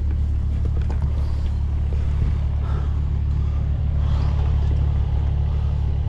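An engine running steadily with a low, even hum, with a few light knocks over it.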